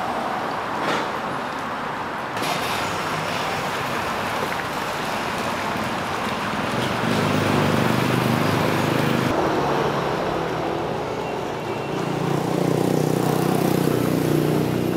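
Road traffic: a steady din of passing vehicles, with louder engine hum from passing vehicles about halfway through and again near the end.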